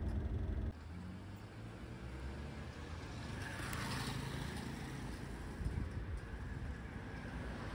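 Road traffic noise, with a vehicle swelling past and loudest about four seconds in.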